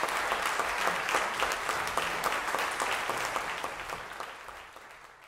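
Audience applauding, a dense patter of many hands clapping that fades away over the last couple of seconds.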